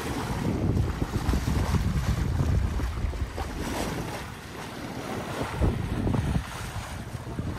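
Wind buffeting the microphone in uneven gusts over the wash of water along the hull of a sailboat under way.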